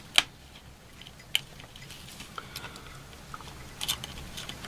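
Scattered small sharp clicks and crackles of smartphone parts being handled and pried up by hand, a small taped-down board being lifted free.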